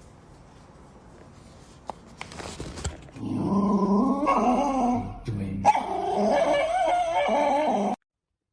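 A dog vocalizing in long, wavering whines and grumbles, in two stretches with a short break between them. The sound starts about three seconds in, after a quiet stretch, and cuts off abruptly.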